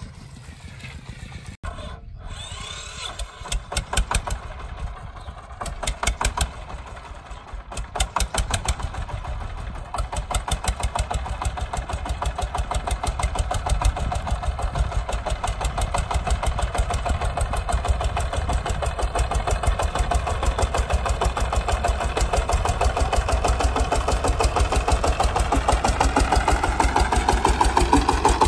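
An engine with a chugging beat: a few uneven puffs at first, then running steadily at a fast even beat that grows gradually louder.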